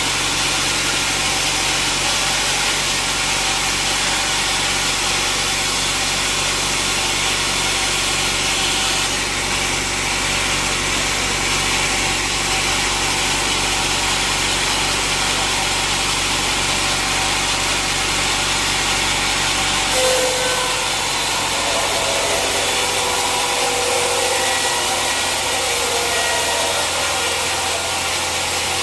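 Sawmill saw cutting teak wood, with the mill machinery running loud and steady. About twenty seconds in there is a sharp knock, and a wavering whine joins the cut.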